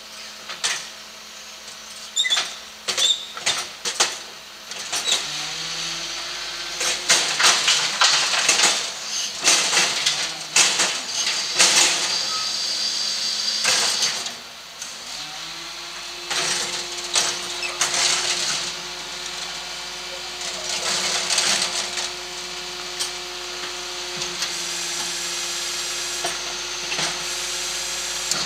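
Hidro-mak rear-loader garbage truck on a Ford Trucks chassis working its bin lifter: metal bins bang and clank repeatedly as they are hooked, tipped and shaken out, most densely in the middle. The truck's engine and hydraulics run under it, rising in pitch twice and then holding a steady whine as the compactor works.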